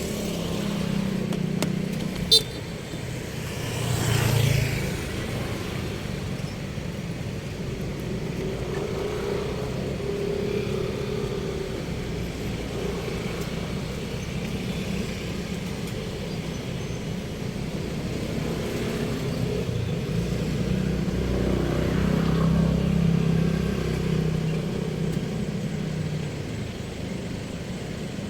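Road traffic: a steady rumble of motor vehicles, with passing vehicles swelling about four seconds in and again around 22 seconds. A single sharp click sounds about two seconds in.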